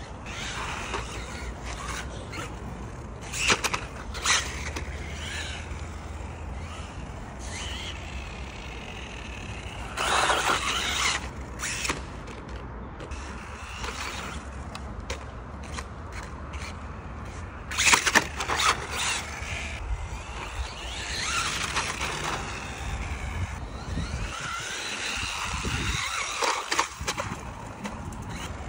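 Small electric toy RC car driving on concrete: its motor and tyres come and go in louder spells as it speeds up and slows, over a steady low rumble.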